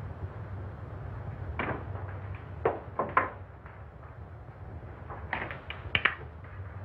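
Scattered light knocks and taps as laboratory glassware and equipment are handled on a bench, several about halfway through and a quick cluster near the end. Underneath is the steady low hum and hiss of an old film soundtrack.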